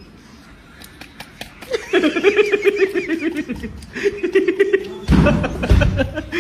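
A person laughing in quick rhythmic bursts, starting about two seconds in, with a loud low rumble about five seconds in.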